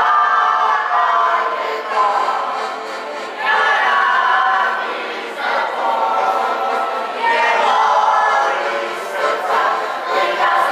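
A group of voices singing together in chorus, in phrases a few seconds long with short breaks between them.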